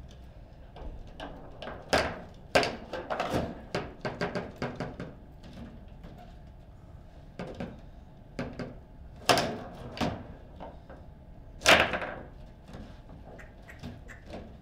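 Table football in play: irregular sharp knocks and clacks of the ball against the plastic players and the table, in a flurry from about two to five seconds in and again from about nine to twelve seconds, the loudest near twelve seconds.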